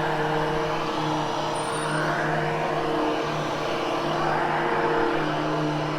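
Hoover HushTone vacuum cleaner running steadily while being pushed over soft Triexta carpet, a constant motor hum under a rush of airflow that swells slightly now and then.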